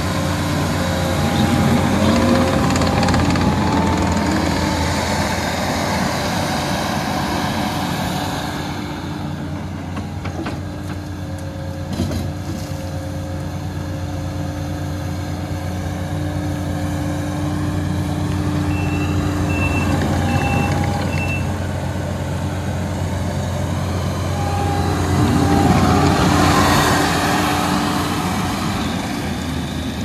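Takeuchi TL6R compact track loader's diesel engine running as the machine drives and raises its bucket, its pitch and loudness rising in two stretches, near the start and near the end. There is a single clunk near the middle, and a short run of high warning beeps a little after it.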